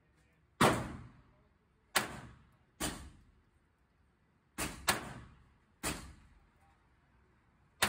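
Taurus TX22 .22 LR semi-automatic pistol firing about seven shots at an uneven pace, two of them in quick succession near the middle. Each shot is a sharp crack with a short echo from the indoor range.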